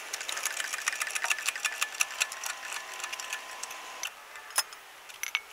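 Hydraulic floor jack being pumped by its handle to lift a car, a fast run of mechanical clicking that thins out to a few scattered clicks after about four seconds.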